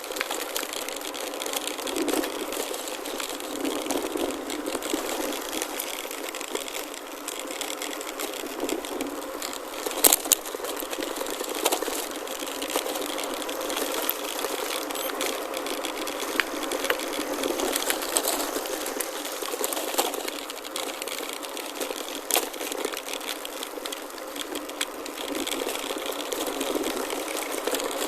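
Gravel bike rolling over a rough gravel forest road: tyres crunching on stones, with the bike rattling and giving sharp knocks now and then as it hits bumps.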